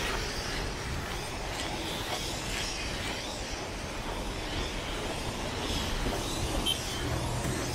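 City street ambience: a steady wash of traffic noise, with a low engine hum coming in near the end.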